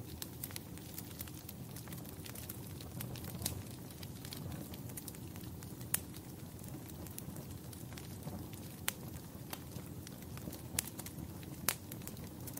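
Wood fire in a fireplace crackling, with irregular sharp pops over a low, steady rumble of burning; two pops stand out, one about halfway through and one near the end.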